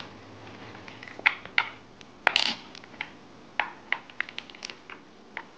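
Irregular sharp plastic clicks and taps, about a dozen, the loudest a little over two seconds in, as the plastic screw holding an Arai Tour-X4 helmet's peak is worked loose and the peak is handled.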